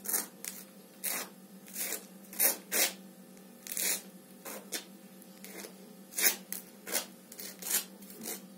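A kitchen utensil scraping in short rasping strokes, about a dozen of them at an uneven pace of one or two a second, over a steady low hum.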